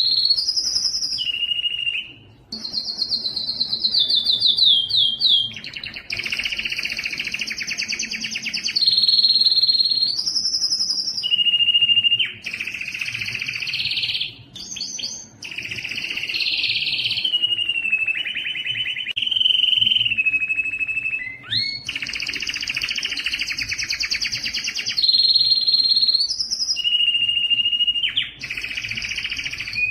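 Male Spanish Timbrado canary singing a continuous song of fast rolling trills alternating with held whistled notes, with brief breaks about two seconds in and around the middle.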